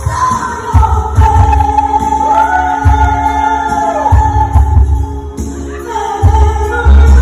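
Woman singing live into a microphone with long held notes, over loud amplified pop-ballad music with a heavy bass.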